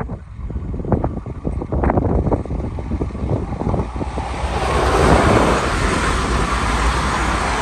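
Wind buffeting the microphone, then an SFM Series 81 electric multiple unit passing close by at speed. Its wheel-on-rail and rushing-air hiss builds to its loudest about five seconds in.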